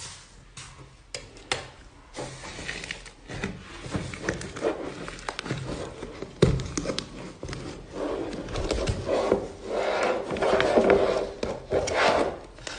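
Slime being handled, squeezed and poked: irregular sticky clicks and rubbing noises that grow busier and louder over the course of the handling.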